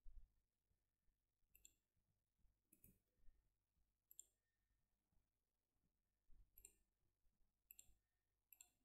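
Near silence broken by faint, scattered computer mouse clicks, about a dozen over nine seconds, over a faint low hum.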